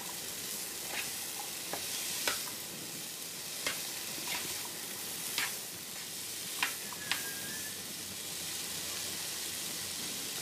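Boiled chickpeas and onion sizzling in oil in a pan while a wooden spatula stirs and tosses them, knocking against the pan about once a second. The stirring stops about seven seconds in, leaving the steady sizzle.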